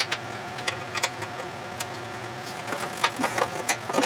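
A steady mechanical hum, with scattered light clicks and knocks of metal parts being handled as a tractor seat is refitted.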